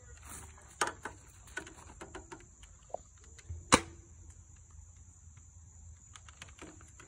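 Nerf dart blaster being fired: a few sharp clicks, then one loud snap about three and a half seconds in. Insects chirr steadily and high-pitched throughout.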